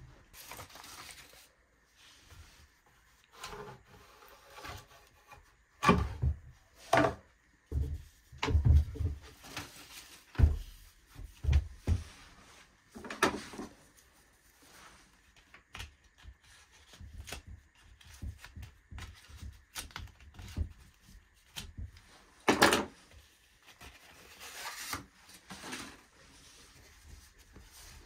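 Irregular plastic clicks, knocks and rubbing from the parts of a BLACK+DECKER cordless chainsaw being handled during assembly, as the bar, chain and side cover are fitted and lined up by hand. The louder knocks come a few seconds apart, with quieter scraping between them.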